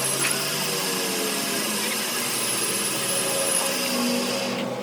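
Workshop machinery running steadily, a whirring hum with a high hiss that drops away near the end.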